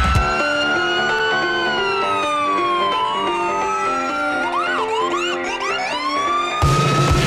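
Ambulance siren wailing in a slow rise and fall, then switching to a few quick whoops about four to five seconds in before rising again. Loud rock music cuts in near the end.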